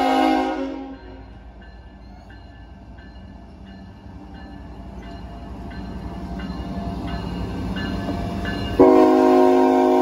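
Diesel locomotive horn sounding a multi-note chord, cutting off about a second in. The engine's low rumble then builds as the GE locomotive draws near and passes, with a grade-crossing bell dinging faintly about every 0.7 s. The horn blasts again suddenly near the end, loud.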